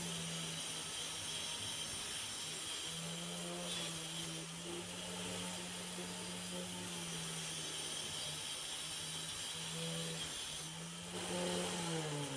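Electric angle grinder motor running at a steady high speed with a hiss, then switched off about eleven seconds in and winding down with a falling pitch.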